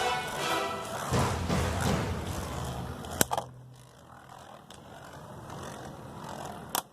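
Beyblade spinning tops whirring and scraping around a plastic stadium. A sharp click comes about three seconds in and another near the end as the tops strike each other or the stadium wall.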